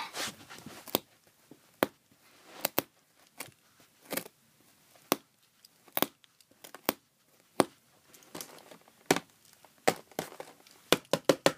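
Rigid plastic toy packaging being cut and pried open with a Swiss Army knife: irregular sharp snaps and crackles of stiff plastic, with light rustling between them. The packaging is hard to open.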